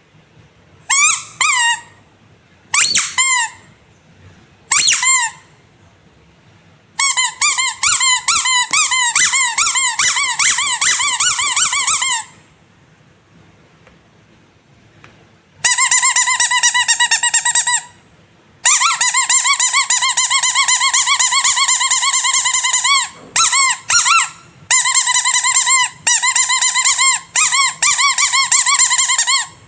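Rubber squeaky animal toy being squeezed: three single squeaks about two seconds apart, then long runs of rapid squeezes, squeak after squeak, broken by a few short pauses.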